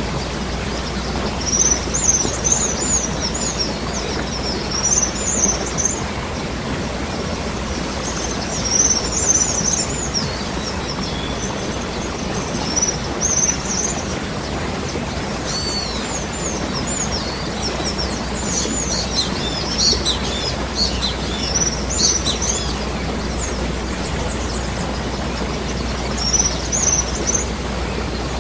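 Steady rushing of water falling at a waterfall, with small birds chirping in short bursts of quick high notes every few seconds, busiest about two-thirds of the way through.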